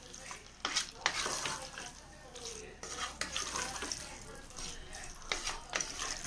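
A ladle stirring and scraping chicken masala around a pressure cooker pot, in irregular scrapes and knocks, over a light sizzle of the masala frying in oil.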